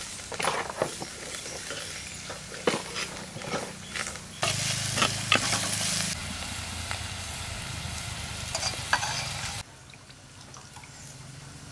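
Food frying in hot oil in a cooking pan while it is stirred, with the scrape and knock of a ladle against the pan. The sizzle suddenly gets louder about four seconds in, eases back, and dies down near the end.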